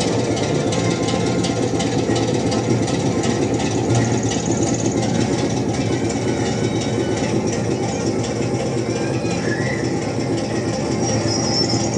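Recorded locomotive engine sound played through a DC model railway's sound system, whose transducers turn the backscene into the speaker. It runs steadily at an even level.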